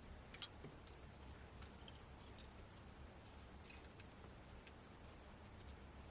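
Near silence over a low hum, broken by a few faint, sharp clicks, the loudest about half a second in: small tools and parts tapping against a tablet during hands-on repair work.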